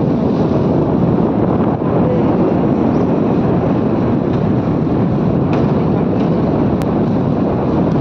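Steady rush of wind buffeting the microphone on a moving motorbike, with road and engine noise beneath, as it descends a hairpin-bend mountain road.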